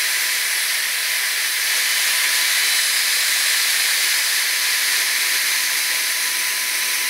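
Shaper Origin handheld CNC router spindle running at full speed and cutting along its contour: a loud, steady high hiss with a thin steady whine.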